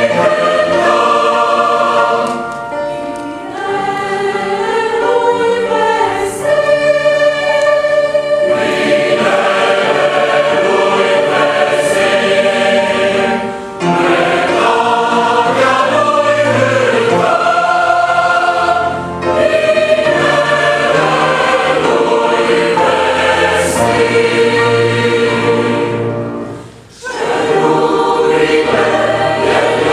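Large mixed church choir of men's and women's voices singing a hymn in parts, with a short break between phrases near the end.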